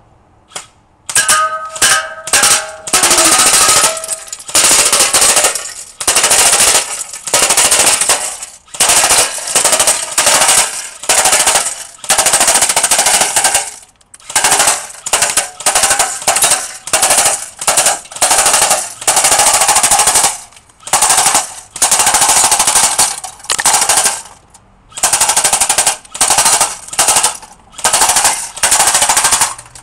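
Echo1 STAG-15 M4-style airsoft electric gun firing full-auto bursts at a can, one burst after another with short pauses, starting about a second in, some bursts around two seconds long.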